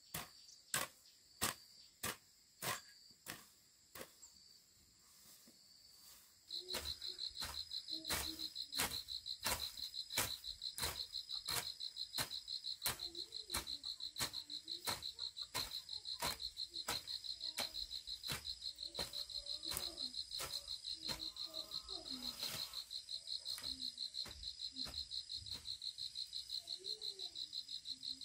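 Metal hoe blade chopping into grassy soil in steady repeated strokes, about two a second. From about six seconds in, an insect keeps up a high, steady, pulsing trill.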